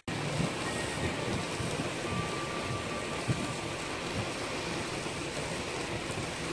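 Steaks sizzling on the grate of a charcoal kettle grill over hot coals: a steady hiss with small irregular crackles.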